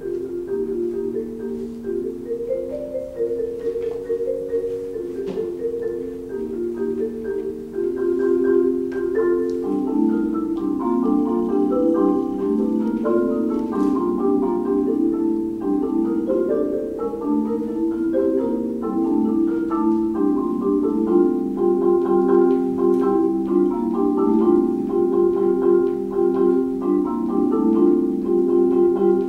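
Solo marimba played with four mallets: a continuous flow of repeated notes and chords that grows louder about eight seconds in.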